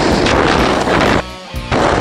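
Rush of wind buffeting the microphone and a sled scraping fast over packed snow on a downhill run. The noise drops out briefly a little past the middle, then comes back.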